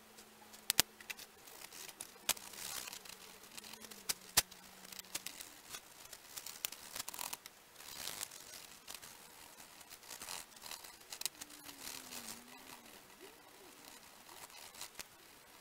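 Marker and wax crayon rubbing and scratching on folded paper in short coloring strokes, with a few sharp clicks in the first half.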